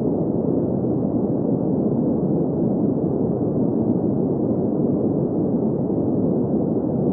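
Steady green noise: an even, muffled rush centred in the low middle range, with no high hiss and no change in level.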